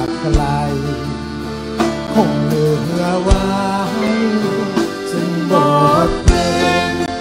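Live band music: a man singing over guitar-backed folk-rock accompaniment, with strong low beats about every three seconds.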